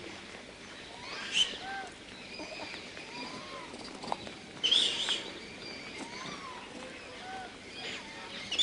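Outdoor natural ambience with birds calling: many short chirps and whistled notes, and louder sharp calls about a second and a half in, around five seconds in and near the end.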